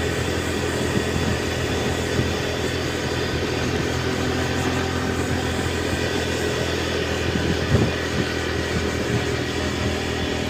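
A motor vehicle's engine running steadily, with road or wind noise.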